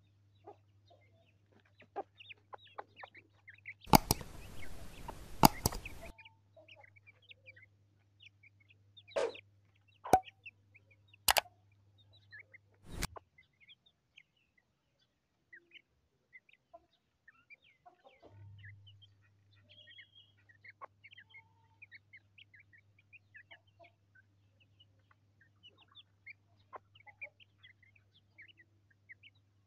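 Hen and chicks foraging, with short high chick peeps and hen clucks scattered throughout. About four seconds in, a loud burst of noise lasts about two seconds, and a few sharp knocks follow a few seconds later.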